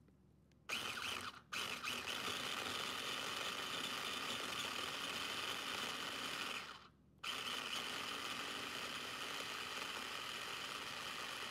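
Small electric food chopper running in pulses as its blade chops tomatoes and peppers into a purée: it starts about a second in, stops for a moment, runs for about five seconds, cuts out for half a second, then runs again.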